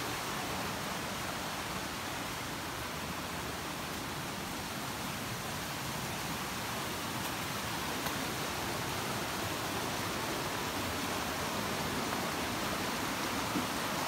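Steady rush of water from a rocky stream flowing over boulders.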